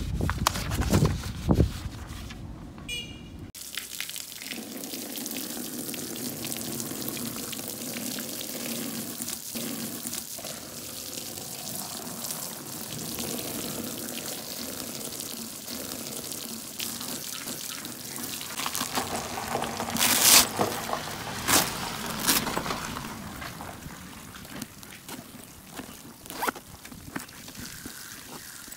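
A stream of water pouring and splashing onto a foil-coated fireproof document bag and the concrete around it. The flow starts a few seconds in and runs steadily, with louder splashing about two-thirds of the way through. The first seconds hold rustling of paper and the bag's fabric, and the last few small zip clicks.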